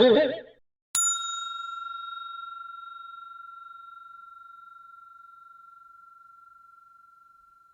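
A desk bell struck once, ringing one clear high tone that fades slowly over about seven seconds. A brief, louder burst of some other sound comes just before it, right at the start.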